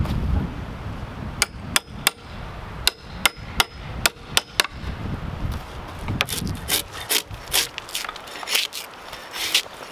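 A drawknife shaving bark and wood from a log beam, drawn in a run of quick rasping strokes in the second half. Before that comes a string of about nine sharp, slightly ringing metallic taps.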